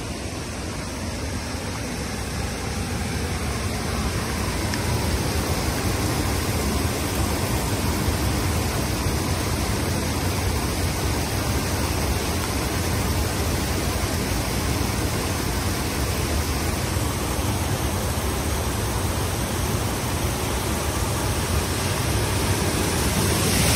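Steady loud rush of floodwater pouring over the edge of a paved road and cascading down the bank beside it, growing a little louder after the first few seconds.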